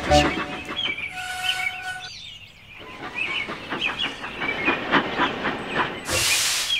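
Steam locomotive sound effects. A steam whistle blows once for about a second, then the engine runs along the track, and a loud burst of steam hiss comes near the end.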